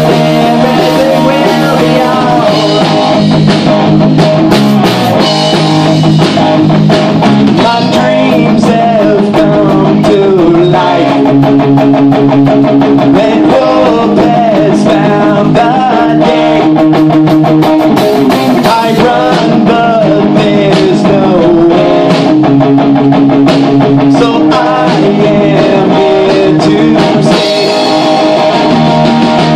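Rock band playing live and loud: electric guitar through a Marshall amplifier, bass guitar and a drum kit, playing without a break.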